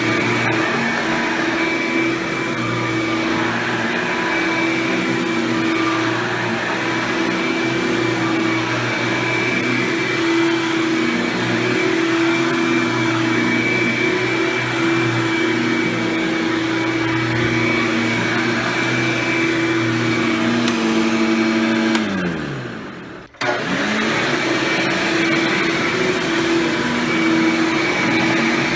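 Hoover Power Drive Supreme self-propelled upright vacuum with a Quadraflex brush roll running steadily. About 22 seconds in its motor winds down in pitch, cuts out for a moment, then spins back up to full speed.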